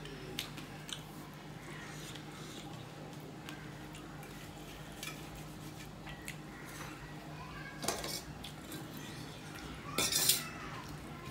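Fingers mixing rice on a stainless steel plate, with scattered light clicks and scrapes. A louder clatter of steel tableware comes about eight seconds in, and the loudest metallic clink, with a short ring, about ten seconds in as a steel bowl is handled.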